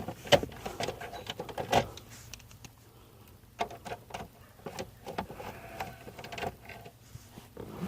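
Irregular clicks and knocks of a screwdriver and hands working at plastic trim under a car's steering column, the sharpest knocks about a third of a second in and near two seconds in.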